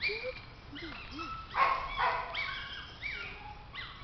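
Small black-and-tan dog whining in a run of short, high-pitched cries, each dropping in pitch at the end and coming roughly every half second to second. One louder, harsher yelp comes about one and a half seconds in.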